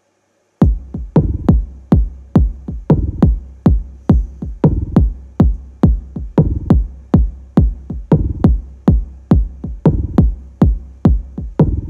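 A techno beat from a drum machine kicks in just over half a second in: deep kick drum hits with a booming low tail repeat about twice a second, topped by short, crisp high clicks.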